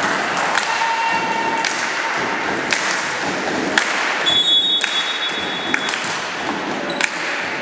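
Sharp thuds of a volleyball hitting a wooden sports-hall floor and hands about once a second, over a steady hubbub in the hall. Midway a referee's whistle blows one steady note for about a second and a half, the signal to serve.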